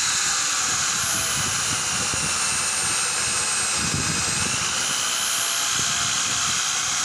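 Electric drill mounted in a homemade bench drill stand, locked on and running with a high motor whine. The whine sags in pitch over the first few seconds and climbs again after about halfway, as the speed dial is turned.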